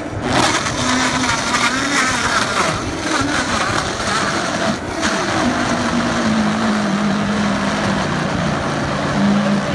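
High-powered countertop blender switched on and running, blending a green lemonade, loud and steady. There is a brief dip about five seconds in, after which the motor settles into a steadier hum.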